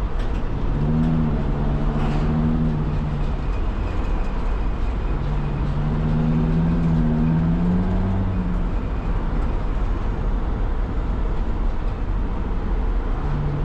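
Steady road and engine noise inside the cabin of a 2006 Sprinter van on the move. An engine hum comes up twice, about a second in and again about five seconds in, rising slightly near the end of the second.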